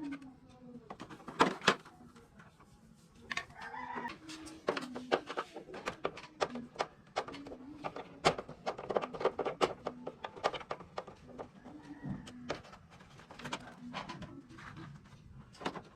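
Chickens clucking and calling intermittently in the background, mixed with many sharp clicks and knocks. The loudest knocks come about a second and a half in and around the middle.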